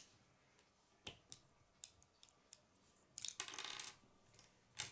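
Plastic K'nex construction pieces clicking and rattling as they are handled and fitted together. There are several sharp separate clicks, a short dense rattle about three seconds in, and a loud click at the end.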